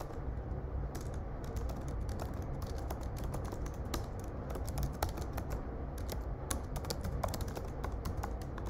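Typing on a computer keyboard: irregular runs of quick key clicks with a few short pauses, over a low steady hum.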